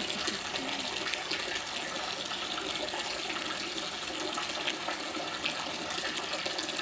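Water running and splashing steadily in a giant otter's enclosure pool.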